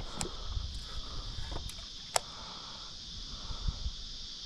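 Steady high-pitched insect chorus, with a few sharp clicks, the loudest a little over two seconds in.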